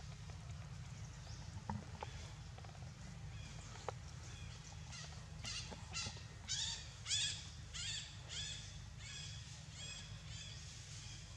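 A series of about a dozen short, high animal calls, each falling in pitch, about two a second. They start about halfway through and are loudest in the middle of the run, over a steady low rumble.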